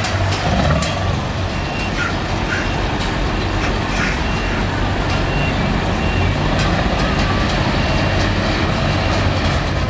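Scania Next Generation V8 truck pulling a refrigerated semi-trailer through a slow turn, the engine running under a steady broad rumble of the rig. From about two seconds in, a short high warning beep repeats for several seconds.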